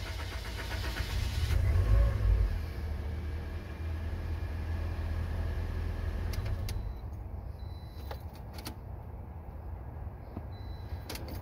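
Toyota Corolla 1.8-litre four-cylinder engine cranked by the starter for about a second and a half, catching about two seconds in with a brief rise, then running steadily and easing down to idle. The start follows a fuel pump replacement and shows the no-start caused by the bad pump is cured.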